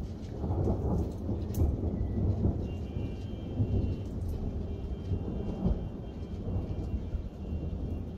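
Continuous rolling thunder, its low rumble swelling and fading without a break, with rain falling. Non-stop thunder like this is characteristic of a hailstorm.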